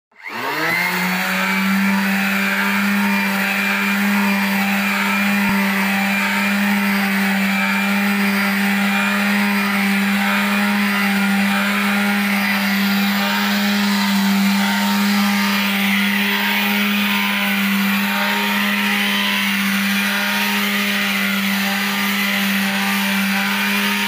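Electric palm sander running steadily against a wooden door, a constant motor hum with a hiss of abrasive on wood as it sands off the old finish.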